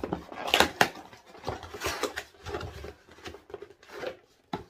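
Product packaging being handled and opened by hand: a run of irregular clicks, taps and rustles, loudest about half a second in, with one sharp click near the end.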